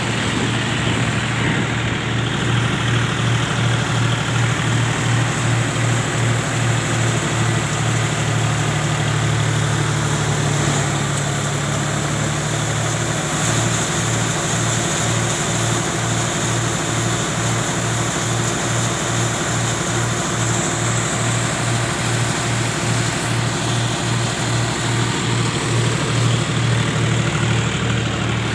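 Engine running steadily, with a low throb that pulses evenly about twice a second.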